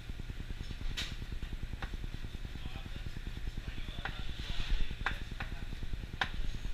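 A chef's knife knocking on a cutting board a few separate times as tarragon is rough-chopped, over a steady low kitchen rumble.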